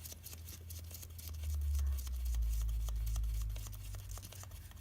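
Faint, irregular small metal clicks as a temperature sensor is threaded by hand into the oil sending unit port at the back of an LQ4 V8 block. A low rumble swells underneath from about a second in and fades near the end.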